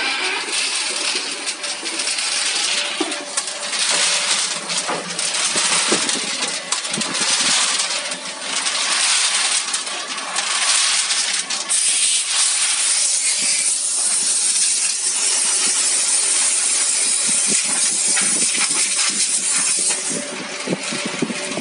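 Barrel-type automatic sandblasting machine running: a steady hiss of abrasive blasting from its nozzles, with small metal screws clinking and rattling as they tumble in the rotating drum. The hiss grows stronger and steadier about halfway through.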